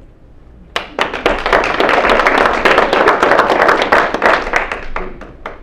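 A small audience applauding with hand claps, starting about a second in and dying away near the end.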